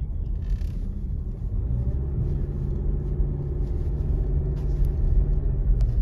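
Car cabin noise while driving: a steady low rumble of engine and tyres, with a faint steady hum.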